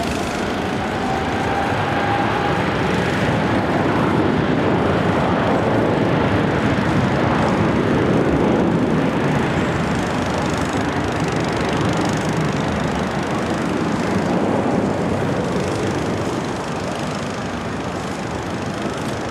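Boeing 777-300ER's twin turbofan engines spooling up for the takeoff roll: a whine rising in pitch near the start over a loud, steady rumble that swells for several seconds and then fades as the jet rolls away.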